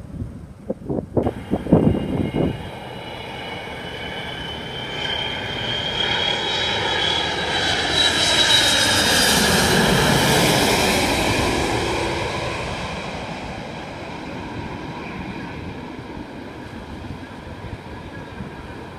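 Jet airliner flying past, its engine roar and high whine building to a peak about ten seconds in, the whine falling in pitch as it passes, then fading away. Wind buffets the microphone for about the first second.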